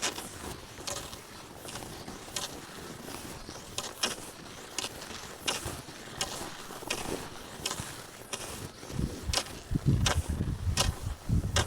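Rhythmic crunching strides over snow, roughly one every 0.7 seconds, as of someone skiing or trudging along a snowy trail. Near the end, low wind gusts buffet the microphone.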